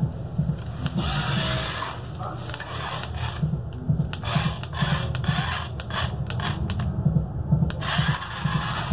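Small plastic remote-control toy car's electric motor and gears whirring as it drives, with a rattle of clicks now and then.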